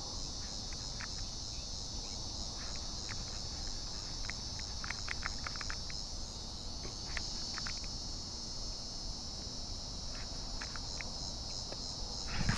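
A steady, high-pitched chorus of insects, with faint short ticks now and then.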